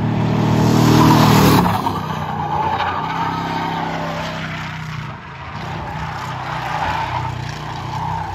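Car engine running with off-road diesel fuel in place of its engine oil, driven hard around a track: loudest about a second and a half in, then easing off and running on steadily.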